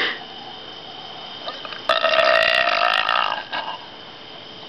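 A woman's long, loud burp lasting about a second and a half, starting about two seconds in.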